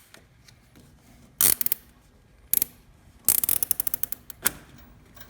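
Nylon zip ties being pulled tight through their locking heads, giving quick ratcheting zips: two short ones, then a longer run of rapid ticks lasting about a second, then a single click near the end.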